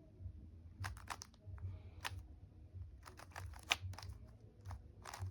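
Plastic Rubik's cube being turned by hand: irregular clicks and clacks of the layers snapping round, some in quick runs of several turns, with one sharper click a little past the middle.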